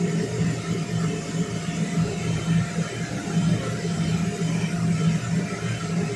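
Inflatable bounce house's electric blower running steadily: a constant low hum and whir of air.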